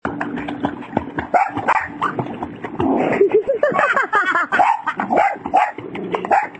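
Dog barking and yipping repeatedly while splashing about in a swimming pool.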